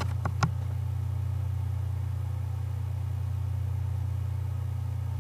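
A steady low electrical-sounding hum, with two short clicks about half a second in.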